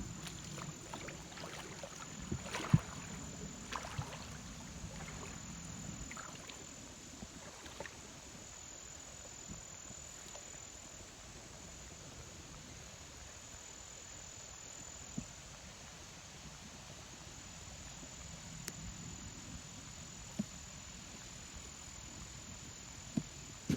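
Steady running creek water with a constant high trill of crickets, and a few footsteps and twig snaps in the first several seconds.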